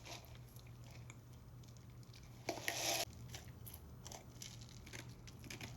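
Quiet handling sounds: faint scattered clicks, with one short rustling burst about two and a half seconds in.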